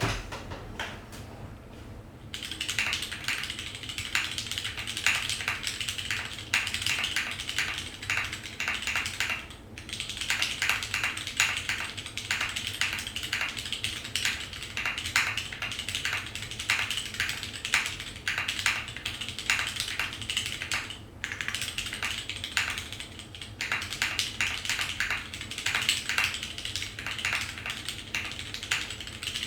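Typing on a Merisi Sessanta HHKB-layout mechanical keyboard with vintage Cherry MX Brown tactile switches, DCS keycaps and a carbon-fibre plate: fast, continuous key clicks. The typing starts about two seconds in and pauses briefly twice, near the middle and about two-thirds of the way through.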